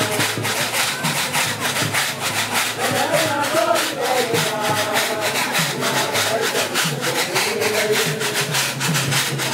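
A group of men chanting a Nuer dance song over the steady rattling of leg rattles worn on the dancers' shins, about four shakes a second.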